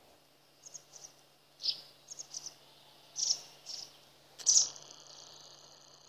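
Small songbird chirping: short, high notes, singly and in quick pairs and triples, about a dozen over a few seconds, with a faint steady low hum underneath.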